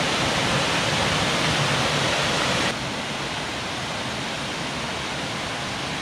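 Cascading waterfall rushing steadily down a rocky streambed. About three seconds in it drops a little in level and sounds less hissy.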